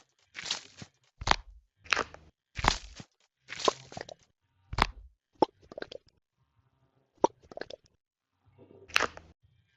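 NeeDoh squishy toy being squeezed and squished up close to the microphone: a run of short squishing noises, about one every three-quarters of a second at first, then fewer and spaced wider toward the end.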